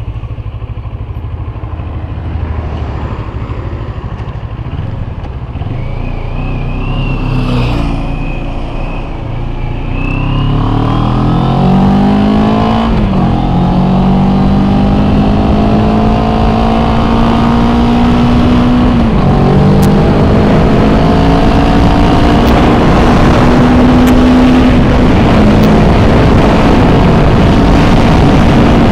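CFMoto 400NK's parallel-twin engine pulling away and accelerating, its pitch rising and dropping back twice at upshifts, then holding speed. Heavy wind noise on the helmet or bike camera's microphone grows as speed builds.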